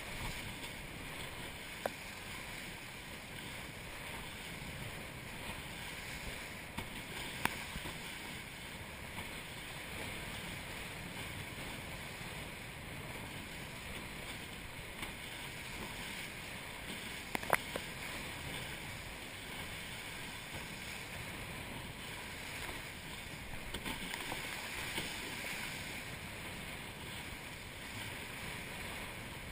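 Hobie Cat catamaran hull rushing through choppy water with spray, heard as a steady hiss with wind on the microphone, broken by a few sharp knocks.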